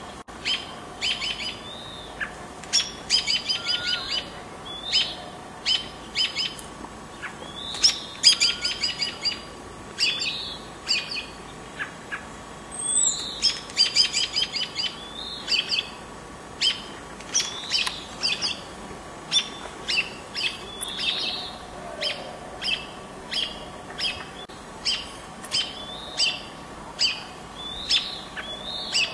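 Small songbirds giving short high chirps, about one or two a second, broken several times by quick chattering runs: calls of birds mobbing a perched red-tailed hawk near their nest.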